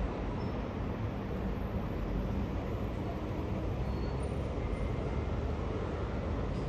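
Steady low rumble of a British Airways Airbus A380's four Rolls-Royce Trent 900 jet engines passing overhead, an even roar with no distinct tones.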